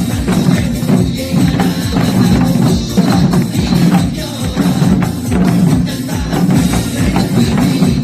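Upbeat dance music with a steady, fast beat and many sharp percussive strokes: janggu drums played along to a pop song.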